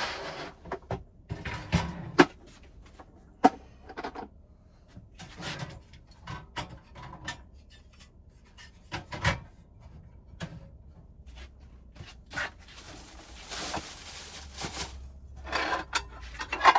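Cooking gear and food being handled in a small space: scattered knocks and clicks as things are set down and cupboards worked, with rubbing, and a longer rustling burst about two-thirds of the way through.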